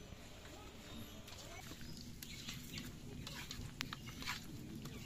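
Soft clicks and wet scrapes of a hand mixing catfish pieces on a steel plate, with a few sharper clicks around the middle. Birds chirp faintly in the background.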